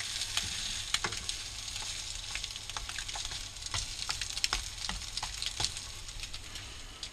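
Egg and potato patties sizzling in hot oil in a frying pan, with scattered clicks and scrapes of a wooden spatula and fork against the pan as they are turned.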